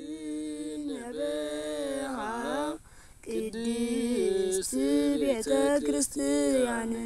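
A single unaccompanied voice chanting a hymn in long, ornamented held notes, with a short break about three seconds in.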